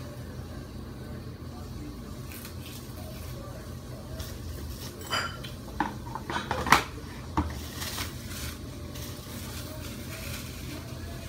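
A roll of plastic cling wrap and its cardboard box being handled as the wrap is pulled off and stretched, with crinkling and a cluster of sharp knocks and clatters between about five and seven and a half seconds in, the loudest near the middle.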